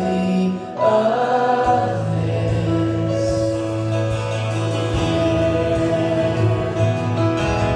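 Live worship music: a band with electric and acoustic guitars, with voices singing slow, held notes. The singing breaks off briefly about half a second in, then resumes.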